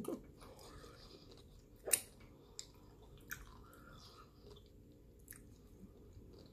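Soft, close-up chewing of a sauce-dipped mouthful, with one sharp mouth click about two seconds in and a few fainter clicks after.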